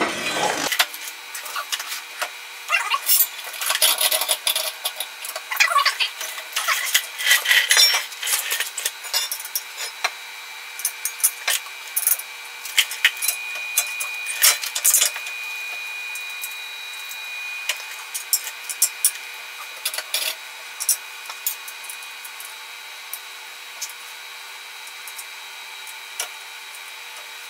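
Metal clinking and chain rattling as a chain hoist (chain falls) is worked to lift a heavy steel mower front end, busy for about the first twelve seconds and then only scattered clicks, over a faint steady hum.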